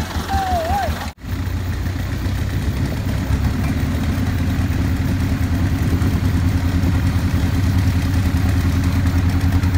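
Four-wheel-drive truck engine running steadily at a low, even drone. The sound cuts out abruptly for an instant about a second in.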